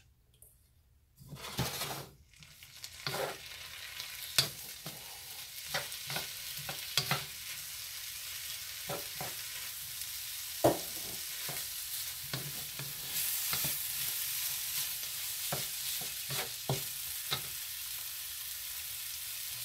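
Chicken and mixed vegetables sizzling in a hot wok, with a wooden spatula scraping and knocking against the pan as they are stirred. After a near-quiet first second, the sizzle builds and then holds steady.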